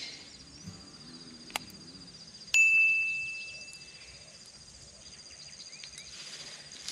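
A single bright, bell-like ding about two and a half seconds in that rings and fades over about a second and a half, over a faint steady high whine.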